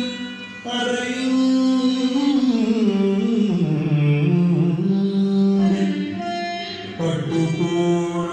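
Carnatic classical music: a voice holding long notes and sliding through ornamented turns over instrumental accompaniment, with fresh phrases starting about a second in and again near the end.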